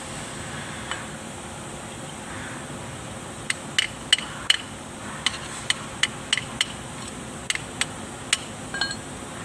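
A hand tool working on a tractor's propeller shaft, tapping and clicking against the metal about a dozen times at an uneven pace, starting a third of the way in and stopping just before the end. A steady hiss runs underneath.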